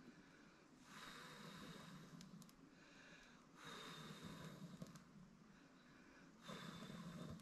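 A person blowing long, steady breaths onto smouldering campfire embers to rekindle them into flame, three blows a few seconds apart.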